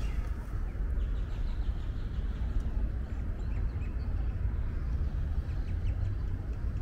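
Outdoor ambience: a steady low rumble with faint bird chirps and small ticks over it.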